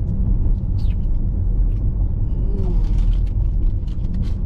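Steady low rumble inside a car with the engine running, with scattered light rustles and clicks, more of them in the second half.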